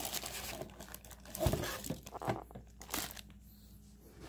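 Clear plastic packaging crinkling and rustling as it is handled, with a soft thump about a second and a half in. It goes quieter over the last second.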